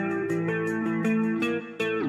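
Background music: a plucked guitar melody over a steady tick about four times a second, dipping briefly near the end.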